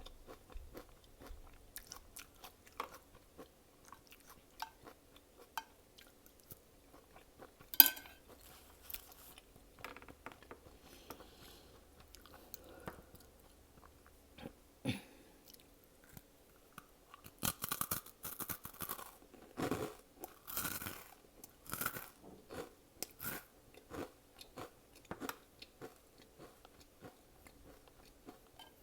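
Close-miked chewing and crunching of food, with many short sharp mouth clicks. The loudest sound is a single sharp crunch about eight seconds in, and there is a louder run of chewing from about seventeen to twenty-three seconds in.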